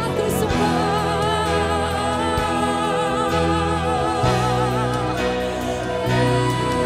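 Live congregational worship music: a woman and a man singing with vibrato into microphones over band accompaniment, with a long held note starting about six seconds in.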